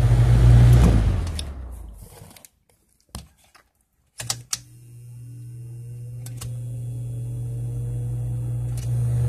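Lasko 3733 fan's motor buzzing loudly with a strong hum, dying away over the first two seconds. A few clicks follow, then the buzz comes back abruptly about four seconds in, with a rising tone as the blades spin up. The owner takes the bad buzz for the motor's windings going out.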